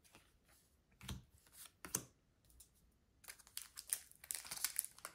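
Pokémon trading cards and their foil packaging handled by hand: a few soft taps and clicks, then from about three seconds in a quick run of crinkling and clicking.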